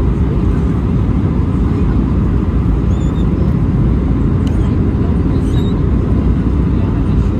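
Steady, loud low rumble of an Airbus A319-111 airliner's cabin in flight during the descent, from its CFM56 turbofan engines and the airflow, heard from a window seat. A few faint light ticks come from the cabin in the middle.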